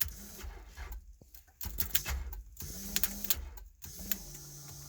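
2001 Toyota Camry's electric fuel pump whirring in short runs, with clicks and brief stops between them. The pump runs, yet the engine will not start.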